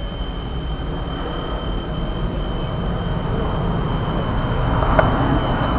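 Steady low rumble of airliner ground noise at the open cabin door, with a thin, steady high whine above it. A single sharp click comes about five seconds in.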